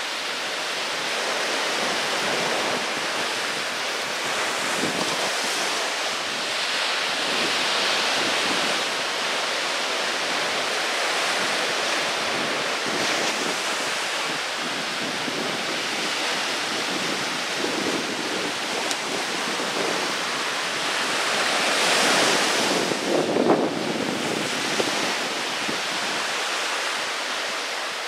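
Small waves breaking and washing up a sandy beach: a steady wash of surf that swells with each wave. A louder wave breaks about three quarters of the way through.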